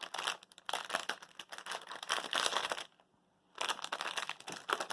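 Small packets of Dreamies cat treats crinkling as they are handled, in two spells with a short pause between them just before the last second and a half.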